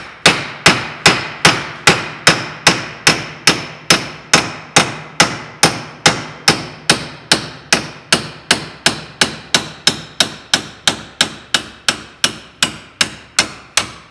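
Hammer striking a steel bushing driver in quick, even blows, about two and a half a second, driving the worn bushing out of a starter motor's nose housing held in a vise.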